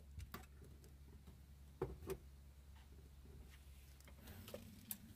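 Near silence with a low hum and a few faint, short clicks and knocks, twice close together just under two seconds in and once near the end. No drill motor runs.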